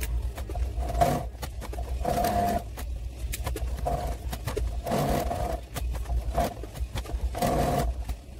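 Domestic sewing machine stitching in short runs, its audio sped up four times, so the stitching comes as about five brief bursts at uneven intervals over a low steady hum.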